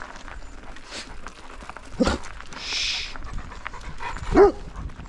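A dog giving two short barks, one about two seconds in and a louder one near the end, with a brief hiss between them.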